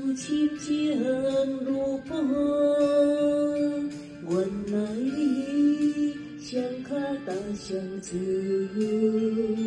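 Recorded song: a melody line of long held notes that slide from one pitch to the next, over steady accompaniment.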